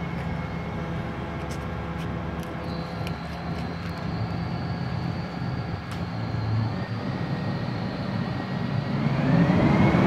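Mobile crane's engine running steadily as it hoists a heavy cut trunk section, with a thin high whine joining in about three seconds in. Near the end the engine revs up, rising in pitch and getting louder.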